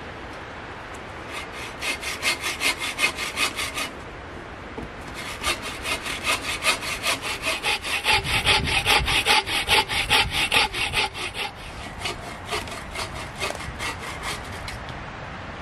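Bow saw cutting through a log in quick, even strokes, about four a second. The sawing comes in two runs with a short pause between, then lighter strokes near the end.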